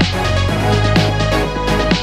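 Background electronic music with a steady beat and a sustained bass line.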